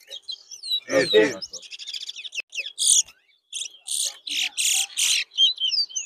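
Towa-towa finches singing: bursts of rapid, high chirps and trills, with a brief loud human voice about a second in.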